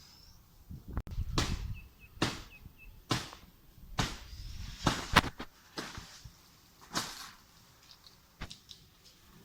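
Chopping strokes of a blade into a coconut palm trunk, a sharp hit about once a second with a quick double stroke about halfway through.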